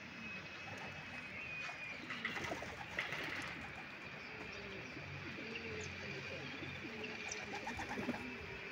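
Domestic pigeons cooing in low repeated calls, with a few short sharp clicks or rustles about two to three seconds in.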